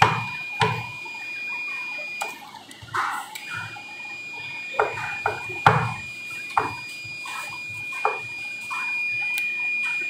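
Multimeter continuity beeper sounding a steady high tone, showing that the pressure switch's common and NC contacts are still closed. It breaks off once for about a second a little after two seconds in. Several knocks and clicks come from hands working the pressure calibrator.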